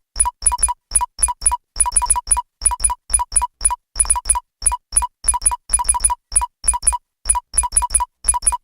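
Synthesized sci-fi keyboard-typing interface sound effect: rapid, unevenly spaced electronic blips, about three or four a second, each a short beep over a soft low thud, like keystrokes on a futuristic computer.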